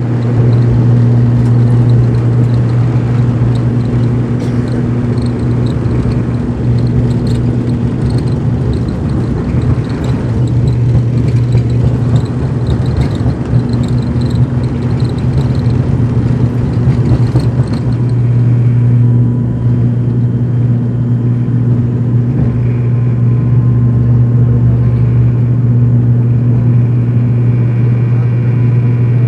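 Turboprop airliner's engine and propeller at takeoff power, heard from inside the cabin beside the propeller: a loud, steady, low propeller drone. During the takeoff roll it is mixed with runway rumble and rattling, which drop away about two-thirds of the way through as the aircraft lifts off and climbs.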